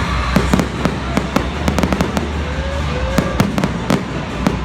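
Fireworks show going off: a rapid string of sharp bangs and crackling bursts, several a second, with no let-up.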